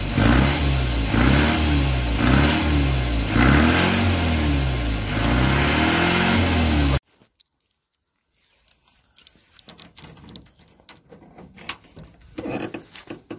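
Ford Transit recovery truck's engine revved up and down over and over, about once a second, then cut off abruptly about seven seconds in. Faint footsteps on grass and rustling follow.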